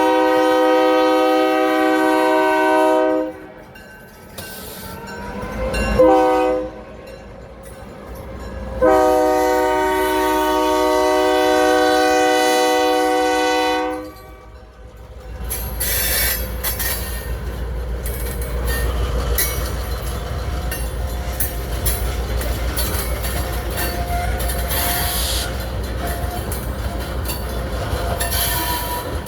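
Freight locomotive's multi-tone air horn sounding a long blast, a short one and another long one, the close of a grade-crossing signal. Then the train rumbles and clatters steadily past.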